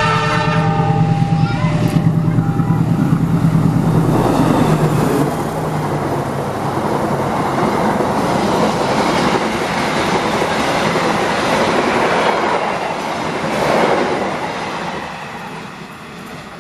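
Diesel-electric locomotive hauling a passenger train past at speed: its horn cuts off just after the start, and its engine drone gives way to the rush and rattle of the coaches' wheels on the rails, which fades away near the end as the train recedes.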